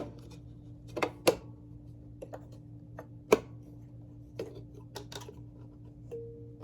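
Scattered sharp clicks and knocks as the bottom plate of a Hoover Convertible upright vacuum is fitted back over the belt and agitator, over a steady low hum.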